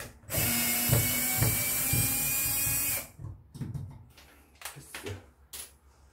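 DeWalt cordless drill-driver running for about three seconds as it drives a screw into a metal ceiling light bracket, then stopping sharply; a few faint knocks follow.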